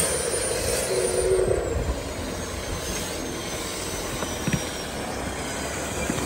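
Turbocharged 4x4 engine revving and running under load, its high turbo whistle rising at the start and then slowly falling over the next few seconds as it eases off.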